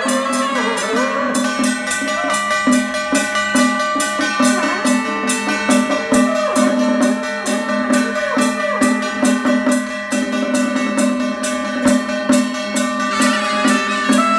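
Temple ritual percussion ensemble of gongs and drum beaten in a fast, steady rhythm of about three or four strikes a second, under a held, wavering melody line.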